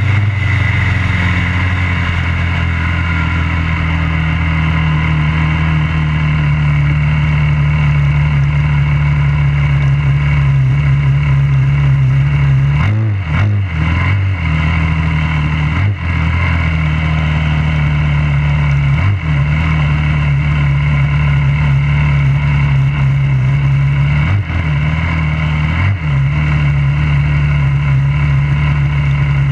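A junior dragster's single-cylinder engine running steadily at low speed, picked up close behind it on board, as the car rolls slowly after its run. The note dips briefly a few times around the middle.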